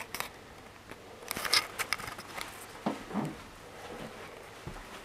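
Scattered clicks and light knocks from a handheld camera being carried along a carpeted hallway, with a sharper cluster of clicks about a second and a half in and a short falling squeak about three seconds in.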